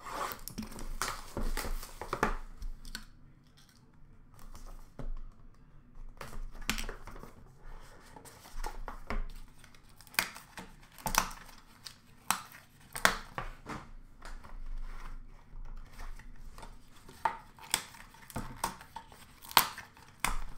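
Wrapping torn and crinkled off a sealed hockey card box, then cardboard and plastic card cases handled, with a run of sharp clicks and snaps in the second half.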